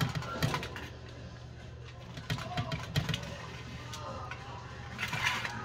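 Kitchen knife slicing through the skin of a whole raw red snapper on aluminium foil: soft cutting with crinkling foil and a few sharp clicks and taps, and a brief rustle near the end. A steady low hum runs underneath.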